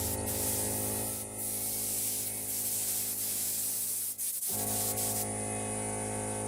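Continuous hiss of compressed-air spraying, as from a spray gun, with a few brief breaks; it cuts off about five seconds in, over a steady low hum.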